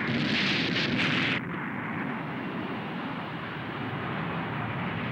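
Animated sound effect of a space shuttle's rocket engines at launch running into its mid-air explosion: a dense, continuous rushing rumble. It is brighter and louder for the first second and a half, then settles into a steady low roar without a distinct bang.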